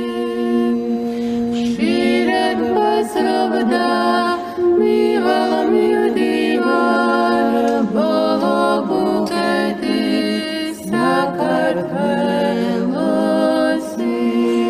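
Unaccompanied voices singing a slow chant in several parts: a low note is held while higher voices move above it from about two seconds in, and the held note stands alone again near the end.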